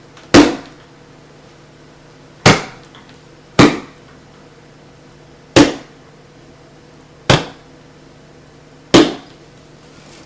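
Six sharp knocks or impacts at uneven intervals, each dying away quickly, over a faint steady hum.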